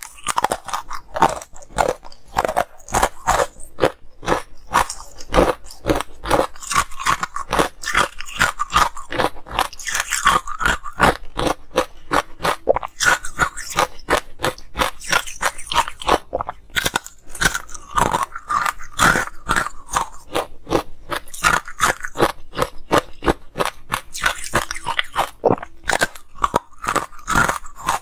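Close-miked crunching of ice chunks being bitten and chewed: dense, irregular crackling crunches, one after another, with mouth noises between them.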